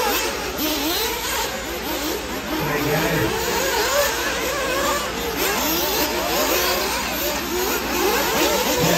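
Several 1/8-scale off-road RC buggies racing, their small engines revving up and down in overlapping, rising and falling whines.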